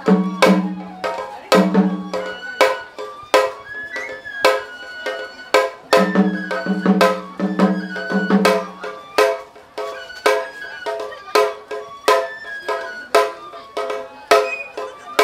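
Japanese festival music from a bamboo transverse flute with a small rope-tensioned shime-daiko and a large barrel taiko drum. Rapid drum strikes run throughout under the flute melody. Runs of deep, ringing barrel-drum beats come at the start and again from about six to nine seconds in.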